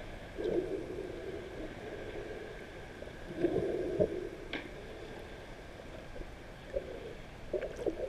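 Muffled underwater water movement and bubbling heard by a camera held just below the surface, rising in a few short swells: about half a second in, around three to four seconds in, and twice near the end.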